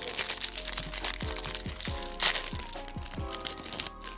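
Background music with a steady beat, over the crinkling and crackling of a thin plastic snack packet of dried cranberries and raisins being opened and squeezed by hand. The loudest crackle comes about two seconds in.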